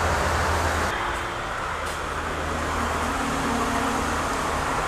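Steady rumble of road traffic with a low hum underneath, no single event standing out.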